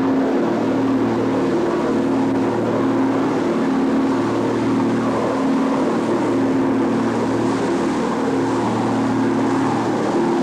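Boat engine running steadily at cruising speed: a constant low drone with a few steady tones under an even rushing noise.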